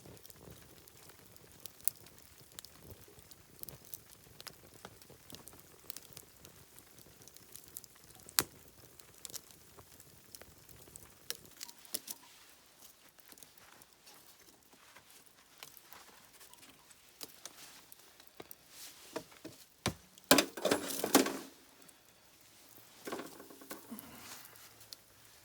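Scattered light clicks and crackles, with a louder clattering rustle about twenty seconds in and a smaller one shortly after.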